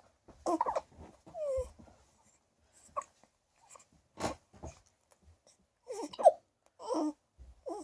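A newborn baby, just over a week old, with the hiccups: short sharp hics among small whimpering grunts and coos, about eight short sounds in all, the loudest about six seconds in.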